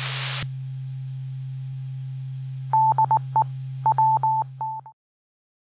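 Amateur-radio 2-meter repeater heard through a receiver: the hiss of the incoming transmission cuts off about half a second in, leaving a steady low hum, then about two seconds of short and long single-pitch beeps in a Morse-code-like pattern. The hum and beeps stop together near the end as the repeater goes off the air.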